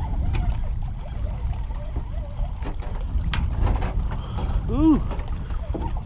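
Wind buffeting a body-worn camera's microphone, a steady low rumble, while a fish is reeled in by hand. A few sharp clicks come in the middle, and a short rising-and-falling cry sounds near the end.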